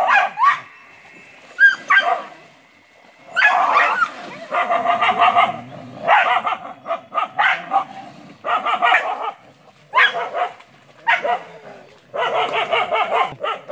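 Dogs barking and snarling at each other in a fight, in repeated bursts of rapid barks with short gaps between them.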